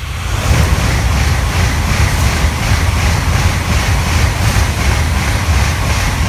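Tokaido Shinkansen N700-series bullet train passing close by at speed: a loud rush of wheel and wind noise with a regular pulse about three or four times a second as the cars go by. It drops away quickly near the end as the last car passes.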